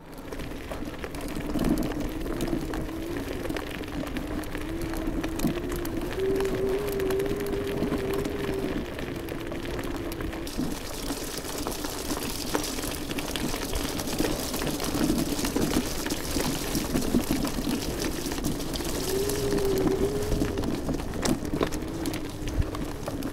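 iScooter iX5 electric scooter ridden over a gravel and dirt trail: the 800 W motor whines steadily, its pitch rising and falling a little with speed, over continuous tyre noise and small rattles and knocks from the rough surface.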